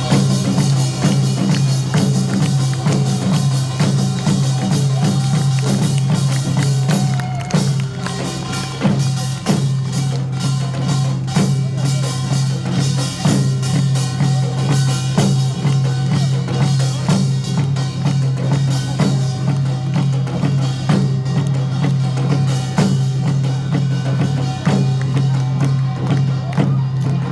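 Loud live music driven by drums and percussion, with a dense run of strikes that keeps going.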